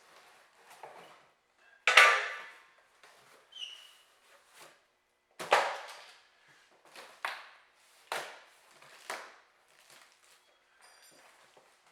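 Irregular clanks and knocks of metal sawmill parts being handled and set down while unpacking, the loudest about 2, 5½ and 8 seconds in, with lighter knocks between.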